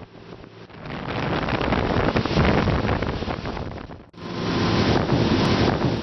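Wind buffeting the microphone on a small open boat under way, with water rushing past the hull. The rush swells and eases, and cuts out for a moment about four seconds in.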